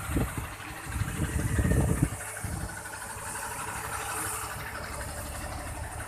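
Heavy diesel truck passing close by, its engine and tyres making a low rumble that is loudest over the first two seconds, then settling into steadier engine noise.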